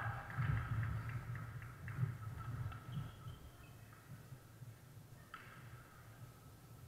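Sports-hall ambience from several badminton courts: a low crowd murmur with scattered shoe squeaks and shuttlecock hits, busier in the first two or three seconds and then quieter.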